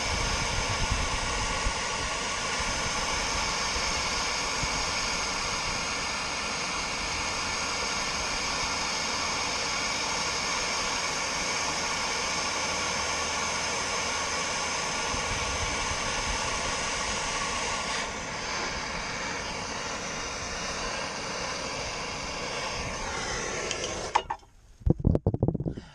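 Handheld gas torch burning with a steady hiss as it heats a boat's propeller hub to loosen it on the shaft. The flame cuts off near the end, followed by a few knocks as the torch is set down.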